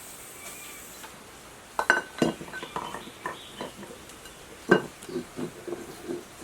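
Metal tools and parts clinking and knocking together in quick irregular strikes, some with a short ring. It starts about two seconds in, with two louder knocks.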